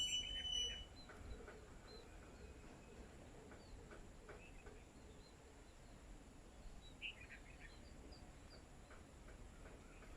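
Small birds chirping: a burst of louder calls in the first second and another about seven seconds in, with short faint chirps repeating between them.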